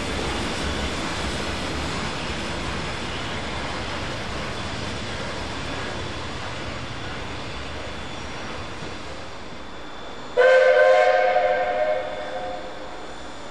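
Train running past with a steady rumble that slowly fades, then a loud locomotive whistle blast of several tones sounding together about ten seconds in, held for about a second and a half before dying away.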